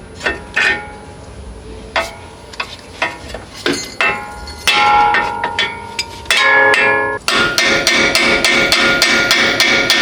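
Steel striking steel, with a ringing tone after each blow: a chisel or fork being hammered into a ball joint to split it from the steering knuckle. There are separate blows every second or so, then a rapid even run of about five strikes a second near the end.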